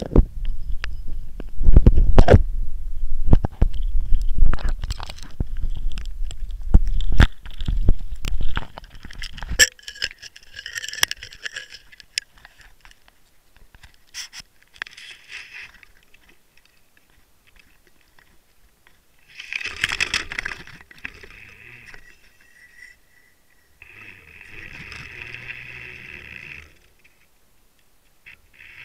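Handling noise picked up by a Water Wolf underwater camera on a surfcasting line: a run of heavy knocks and thumps for about the first ten seconds, then lighter scraping and rustling, with two short bursts of scraping later on.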